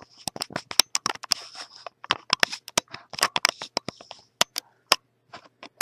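Handling noise: quick irregular clicks, taps and light scrapes as something is adjusted by hand, busiest in the first four seconds and sparser near the end.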